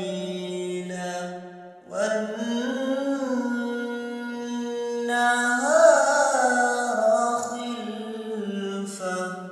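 Quran recitation: a single voice chanting Arabic verses in long, melodic held notes, with a short pause for breath about two seconds in.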